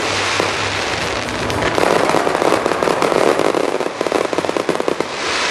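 Star mine fireworks barrage: a dense, continuous mix of shell bursts and crackling, with a quick run of sharp crackles about four seconds in.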